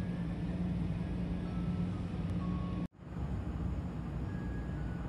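Steady low background hum with a faint even hiss and a few faint short tones; it breaks off for an instant about three seconds in.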